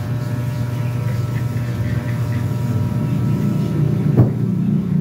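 A steady low drone with faint steady tones above it, and a single short knock a little after four seconds in.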